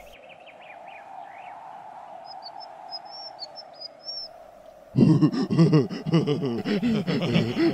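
Quiet outdoor ambience with a few short high bird chirps. About five seconds in, a loud burst of cartoon caveman laughter, rapid repeated 'ha's, breaks in and keeps going.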